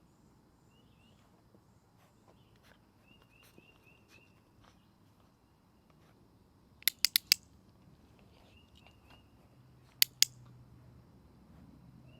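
Dog-training clicker clicking sharply: four clicks in quick succession about seven seconds in, then two more about three seconds later. The click marks the moment a food reward is coming.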